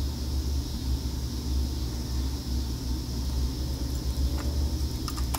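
Steady low rumble with an even hiss, and a few faint clicks near the end.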